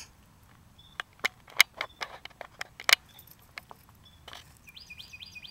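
A dog's jaws snapping and biting at a locust in the grass, heard as a few sharp clicks. Birds chirp in the background, with a quick run of bird notes near the end.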